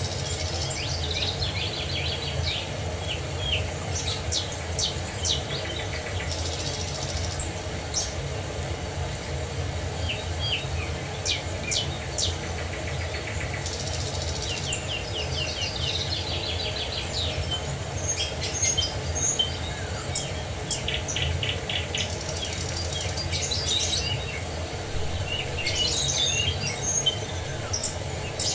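Several wild birds singing and calling throughout, with rapid chirping trills, over a steady rush of running water.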